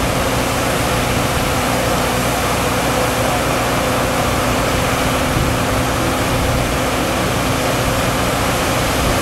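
Kobelco amphibious excavator's engine running steadily under load, driving a hydraulic Dragflow HY85B dredging pump, with a steady rushing of slurry spraying from the discharge. A constant machine hum with a couple of steady tones runs underneath, with no change.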